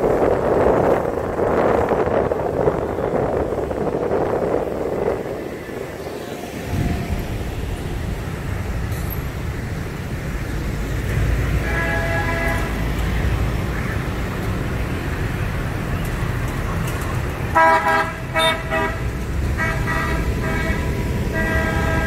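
City traffic with a steady low road rumble and vehicle horns honking: a short honk about halfway through, then a string of honks in the last few seconds.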